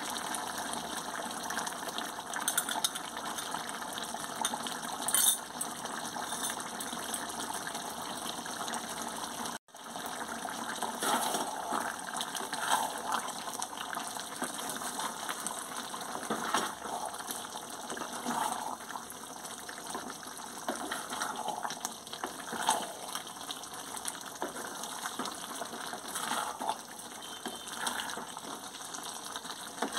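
Chicken curry bubbling and simmering in a metal wok, with a wooden spatula stirring through the thick gravy and scraping the pan. The sound breaks off for an instant just before ten seconds in.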